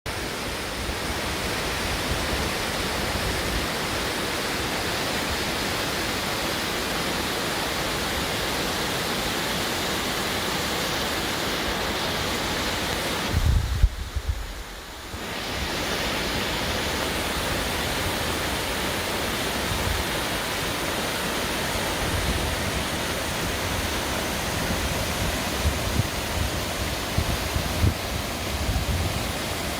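Cotatuero waterfall rushing: a steady, even water noise that dips for a couple of seconds about halfway, with low gusts of wind buffeting the microphone at times.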